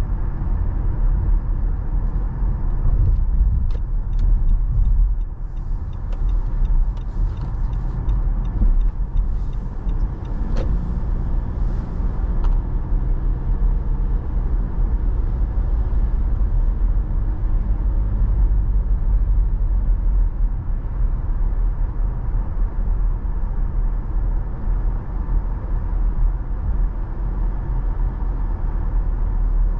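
A car driving slowly, with a steady low rumble of road and engine noise heard from inside the car. Faint light clicks come and go a few seconds in.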